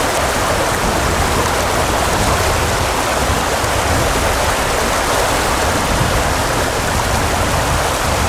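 Steady, even rush of water with no breaks or single events.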